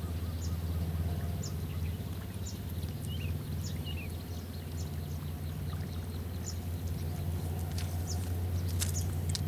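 A steady low hum runs throughout. Over it come faint, short high ticks about once a second, and a brief chirp a few seconds in.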